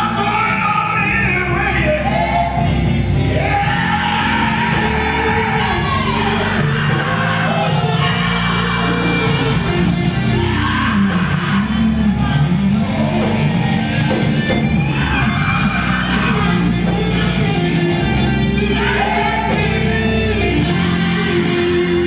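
Live gospel band performing: a lead singer and female backing singers over electric bass guitar, drum kit and keyboard, playing without a break.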